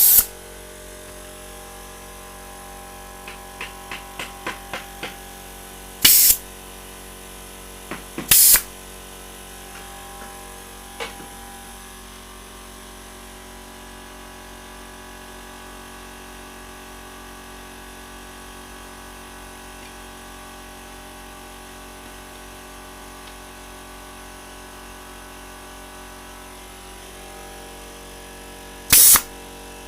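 Compressed-air nail gun firing: four sharp blasts with a burst of air hiss, one right at the start, two close together about 6 and 8.5 seconds in, and one near the end. Lighter clicks and taps fall between the shots, with a steady faint hum underneath.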